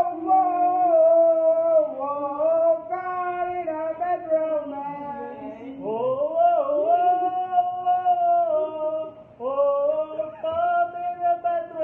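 A voice singing a slow melody in long held notes, phrase after phrase, with short breaks between phrases.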